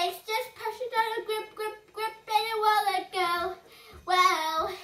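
A young child singing in a high, sing-song voice: a string of short sung phrases, ending about four seconds in with a longer, louder phrase that rises and falls in pitch.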